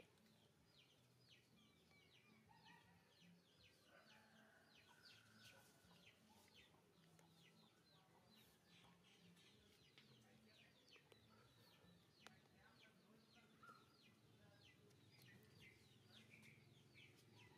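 Faint outdoor background of small birds chirping in quick repeated notes, with chickens clucking now and then.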